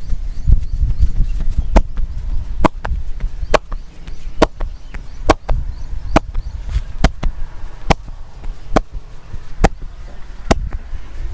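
Hands striking the body in percussive massage strokes: a sharp slap or chop a little under once a second, about eleven in a row, over a low rumble.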